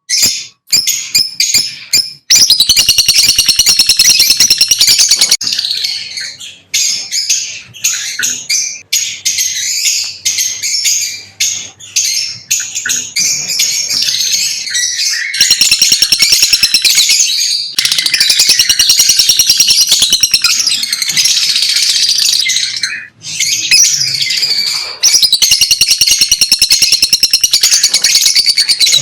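Lovebirds chirping and chattering in rapid, high-pitched runs that come in loud stretches of several seconds, with short lulls between them.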